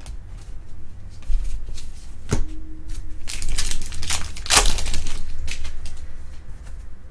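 Baseball trading cards being flipped through and slid over one another in the hand: a run of papery slides and flicks, busiest about three to five seconds in, with one sharp tap a little over two seconds in.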